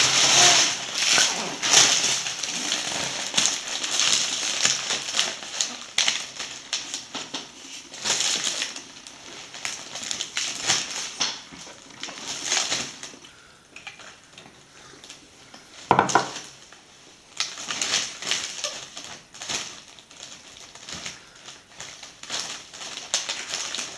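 Thin bakery bag crinkling and rustling in irregular bursts as a baby grabs and scrunches it, with quieter pauses between handfuls.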